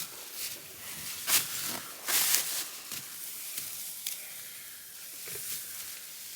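Dry hay and baling twine rustling and scraping in a few short bursts as twine is pulled around a hand-pressed hay bale to tie it off, the loudest stretch about two seconds in.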